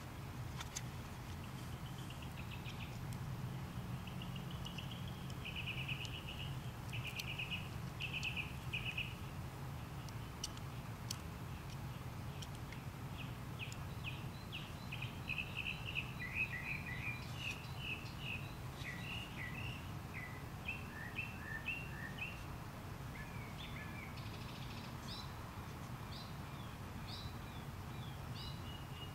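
Birds chirping in repeated short trilled phrases, over a steady low hum.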